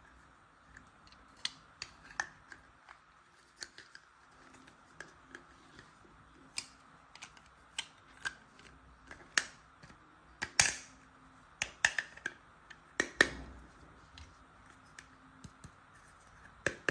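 Irregular small clicks and taps of plastic toy tool parts being handled, with two louder, longer clatters about halfway through and a little later.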